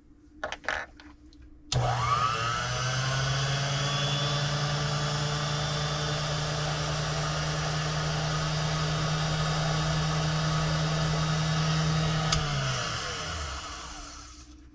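Small lathe motor switched on, spinning up quickly, then running at a steady speed for about ten seconds before it is switched off and winds down. It is turning a clock wheel to true its pivot.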